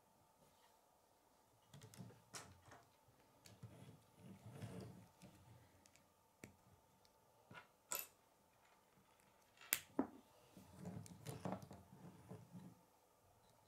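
Plastic K'nex rods and connectors being handled and snapped together: scattered sharp clicks with soft rustling of parts between them, the sharpest clicks about eight and ten seconds in.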